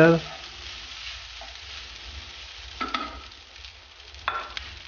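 Diced chicken breast sizzling as it fries in a little oil in a nonstick frying pan, stirred with a slotted spatula. Two short louder spatula strokes against the pan come about three seconds in and near the end.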